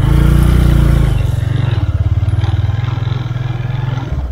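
Small motorcycle engine running under load, loudest in the first second, then pulling on steadily.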